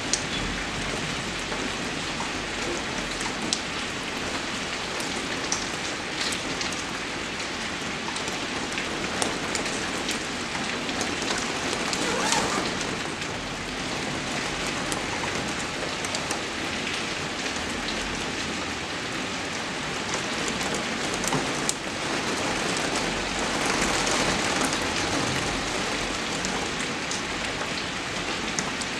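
Steady rain falling, with scattered sharp drop hits standing out against the even hiss. The rain swells a little louder about twelve seconds in and again a little past twenty seconds.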